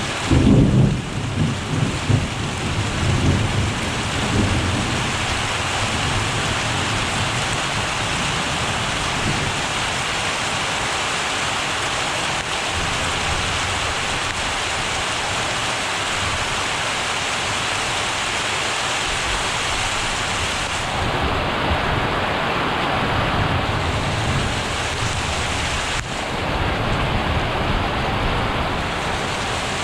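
Thunder cracking and rumbling for the first few seconds over steady, heavy rain, with a softer low rumble about twenty seconds in.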